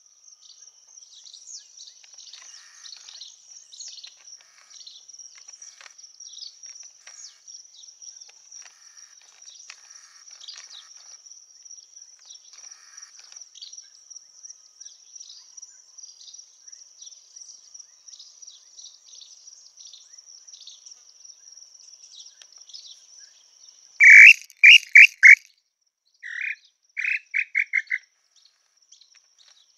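Tataupa tinamou's whistled song: two short series of loud clear notes about three quarters in, the second quickening toward its end. A steady high insect drone runs underneath.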